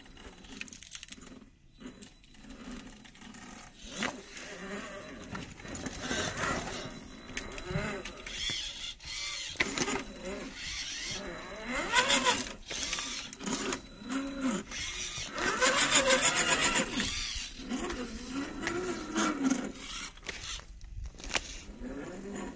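1/10 scale rock crawler's 550 brushed electric motor and metal gearbox whining, pitch rising and falling with the throttle as the truck climbs on ice. It is loudest about halfway through and again for a second or two about two-thirds in.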